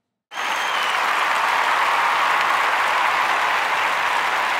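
Applause starting suddenly about a third of a second in and going on steadily.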